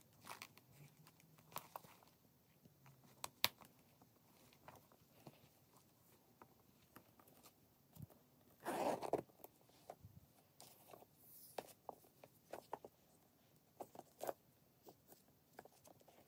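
Hands handling a Coach Luna leather shoulder bag, with scattered soft clicks and taps of its hardware and leather. About halfway through comes one short zip of the bag's metal top zipper.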